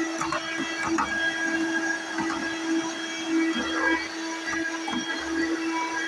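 Vacuum cleaner running on a hardwood floor: a steady motor hum with a high whine above it, its level wavering slightly as the floor head is pushed back and forth. A few light knocks come in the first couple of seconds.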